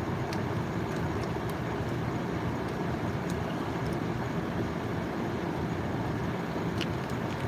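Steady low rumbling background noise with a few faint light clicks, the clicks from a plastic packaging bag being handled.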